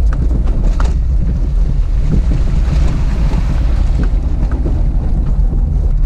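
A Fiat Uno driving on a dirt road: a loud, steady low rumble of engine and tyres on gravel, with wind buffeting the microphone and a few short knocks and rattles.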